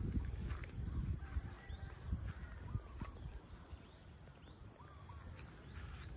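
Wind buffeting the microphone, strongest in the first second or two and then dying down, with short scattered bird chirps and a faint, steady, high insect drone behind.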